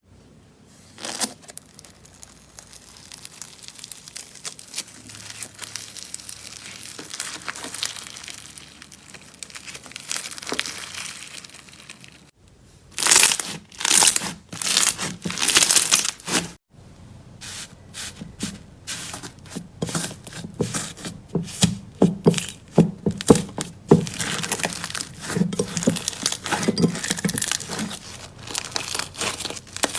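Slime being squeezed and stretched by hand, making crackling, crinkling and popping sounds. The sound breaks off briefly about 12 and 17 seconds in, and is louder and burstier after the first break.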